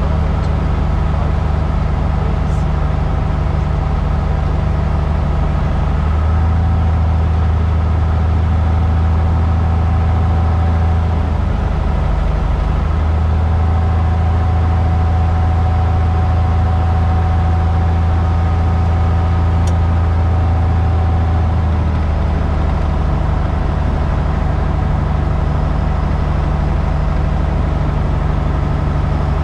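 Cessna 172's piston engine and propeller droning steadily in cruise flight, heard inside the cabin over wind and airflow noise. The low hum shifts in strength a few times.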